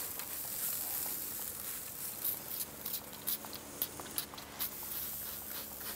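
Quiet background: a faint steady hiss with a few scattered soft ticks.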